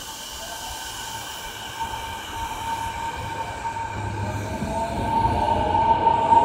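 Kobe Municipal Subway 1000-series train pulling into the station and running slowly past. A steady high whine sits over the rumble of the wheels, with lower gliding tones, and the sound grows louder as the cars come by.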